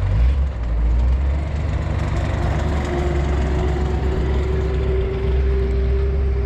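Dodge pickup truck's engine running at low revs as the truck drives slowly off, a steady low rumble with a held drone over it.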